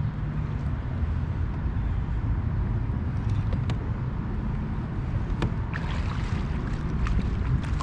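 Steady low outdoor rumble on the water, with a few light, sharp clicks in the second half.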